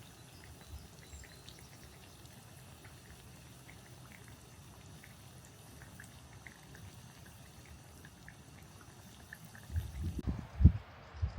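Breaded chicken cordon bleu frying in a pan of oil: a faint, steady sizzle with scattered small crackles. Near the end a few dull thumps break in.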